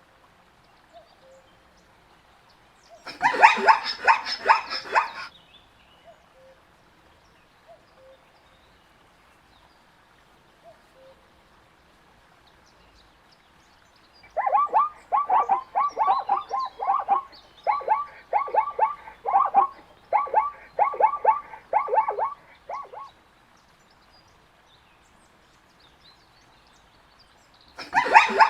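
Zebra calling in rapid series of repeated yelping barks: a short bout about three seconds in, then a longer run in three bouts from about halfway to near the end.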